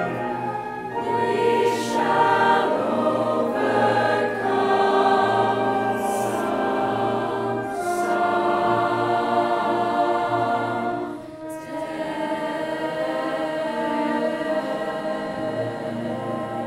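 Music: a choir singing with accompaniment.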